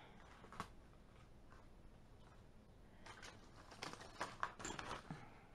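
Faint rustling and light taps of paper sheets and leaves being handled, with a single tap about half a second in and a run of short irregular crinkles in the second half.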